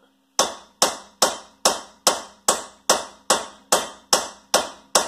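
Steady, rapid hammer blows on metal, about two and a half strikes a second, each with a short ring: a stuck rear wheel hub being hammered out of a 2010 Toyota Prius.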